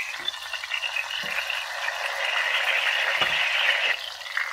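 Chapli kababs shallow-frying over medium heat in a stainless steel pan of oil, sizzling and crackling steadily as they are turned with a spatula. The sizzle grows louder for a while and drops off near the end, with a few soft knocks along the way.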